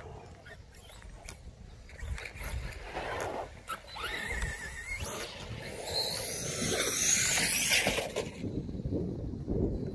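Electric motor of a radio-controlled monster truck whining as it is driven off across grass. The whine rises and falls in pitch with the throttle and is loudest from about four to eight seconds in, over a low rumble.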